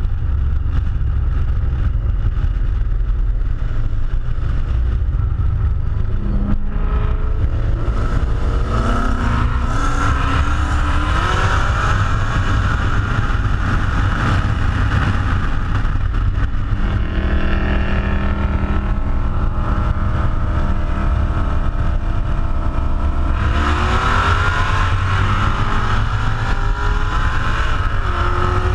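Car engines accelerating hard at highway speed, the engine notes climbing in pitch through the gears about a quarter of the way in and again near the end, over heavy wind and road rumble on a car-mounted camera.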